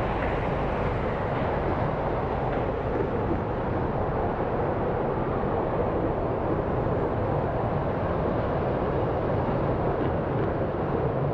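Steady, unbroken noise of car traffic passing close by.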